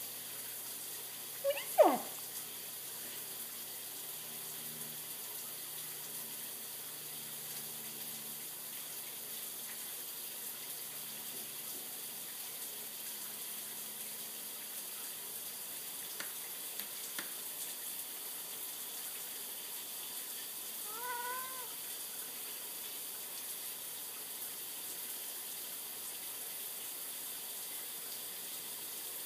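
A house cat meows once, short and falling in pitch, about two seconds in, then gives a fainter short call about twenty seconds later, over a steady hiss.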